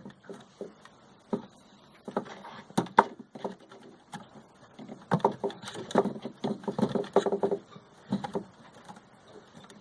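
Small irregular clicks and scratchy handling noises: wire connectors being worked onto the terminals of a SUPCO SPP6 hard start relay.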